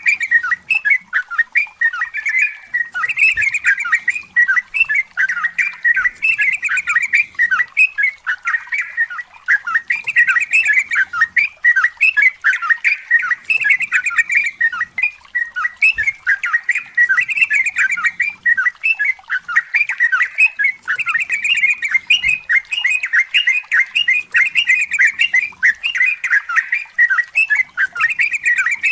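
Yellow-vented bulbul (trucukan) singing a long, rapid, unbroken run of bubbling chattering notes, phrase after phrase with no pause.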